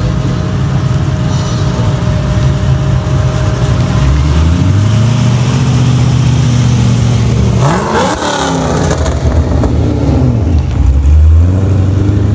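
Pontiac G8 sedan's engine pulling slowly past, then revving up hard about eight seconds in as it accelerates away. Near the end a second car, a white Ford Mustang, drives by with its engine running.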